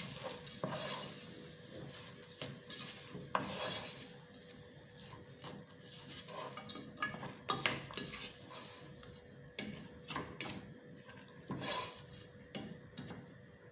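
Spoon stirring basmati rice with onion, oil and spices in a pot, with irregular scrapes and clicks against the pot and a light sizzle of the frying oil underneath.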